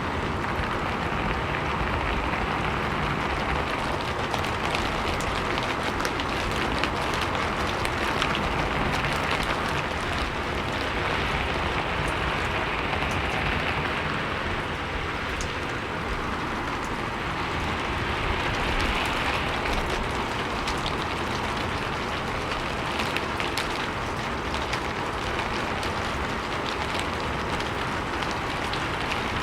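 Steady rain falling on a roof: a dense patter of drops with scattered sharper individual hits.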